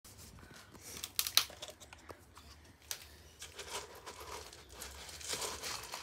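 Rustling and crinkling with a few sharp clicks, the loudest clicks a little over a second in, then denser rustling in the second half.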